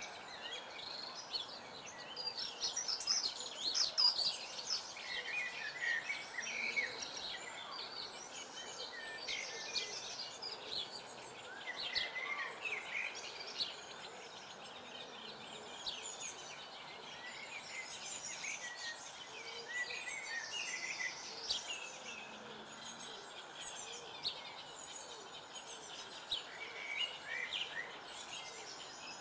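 Several wild birds singing and calling, with many short chirps and trills overlapping, over a steady outdoor background hiss. The birdsong is busiest in the first few seconds.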